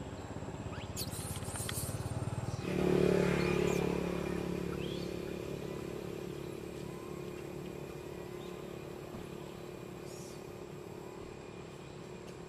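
A motor engine running steadily off-camera. It comes in suddenly about three seconds in and slowly fades away, after a low rumble that grows over the first seconds.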